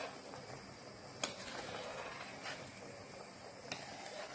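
A pot of chickpeas at a rolling boil, a soft steady bubbling hiss, with two sharp clicks of the metal spoon as the foam is skimmed off, about a second in and near the end.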